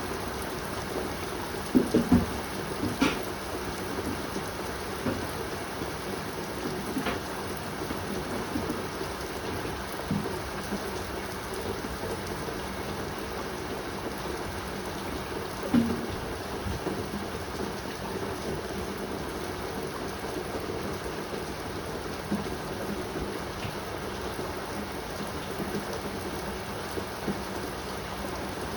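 Pouring rain falling steadily, with a few louder drops or knocks close by, a cluster about two seconds in and another around sixteen seconds.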